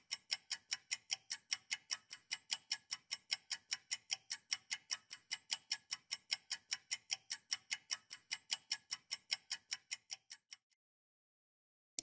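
Clock-ticking sound effect for a quiz countdown timer: rapid, evenly spaced ticks that stop about a second before the end.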